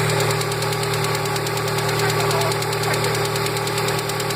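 Lada Priora engine running steadily with a rapid ticking knock from one hydraulic valve lifter on the exhaust side, the sign of a faulty lifter.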